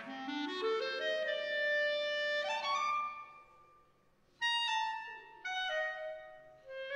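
Clarinet playing a melody: an upward run of notes into a held note, a short break, then brief phrases again about four and a half seconds in.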